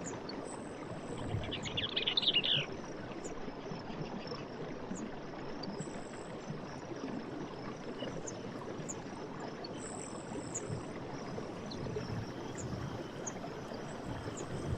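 Night forest ambience: a steady rushing background with insects trilling and ticking high and at intervals. A short, rapid animal call, the loudest sound, comes about two seconds in.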